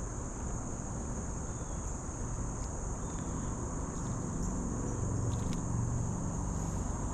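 Steady, high-pitched insect chorus running without a break, over a low rumble, with a few faint ticks.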